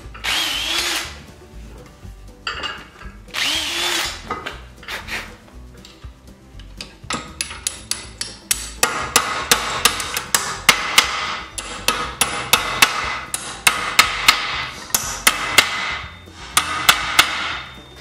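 Cordless drill/driver running in two short bursts, its whine rising and falling, as it drives a fastener at a wagon-wheel hub. Then a long run of quick sharp knocks, about three a second.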